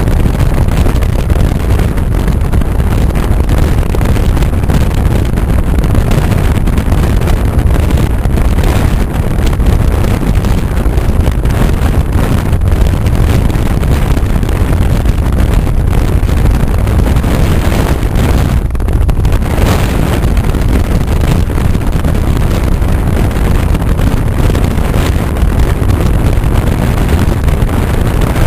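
Loud, steady wind buffeting the microphone from a moving vehicle, over a low rumble of engine and road noise.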